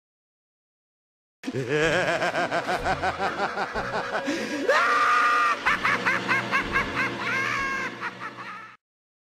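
A drawn-out evil laugh: a long run of quick, rhythmic ha-ha pulses that swoops up into a higher, shriller laugh about halfway through. It starts abruptly after a second and a half of silence and cuts off just as abruptly near the end.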